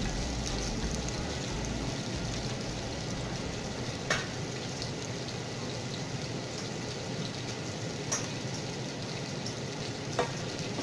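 Sliced mushrooms frying in bacon fat in a skillet: a steady sizzle, with a few sharp pops about every four seconds.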